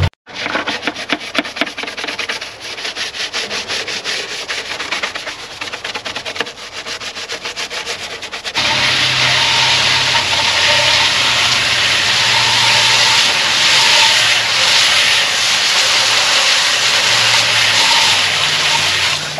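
Garden hose spray nozzle washing the green fan shroud of a Porsche 911 engine. A rapid, uneven spattering for the first eight seconds or so, then a steady hiss of spray hitting the shroud, with a faint low hum beneath.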